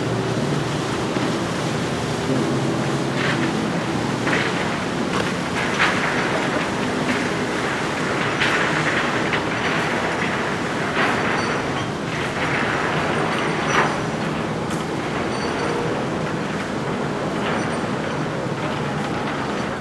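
Powerboat engines running at low speed, a steady rumble with the rush of water around the hulls.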